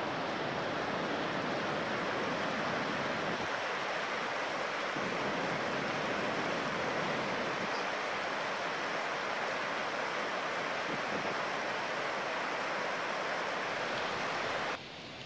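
Steady rush of the Takara River's water running over rocks and small rapids, dropping suddenly to a quieter hiss near the end.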